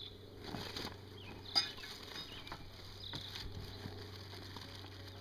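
Rummaging through a croquet set's carrying bag: plastic wrapping rustling, with a few light clicks and knocks as the pieces inside are moved.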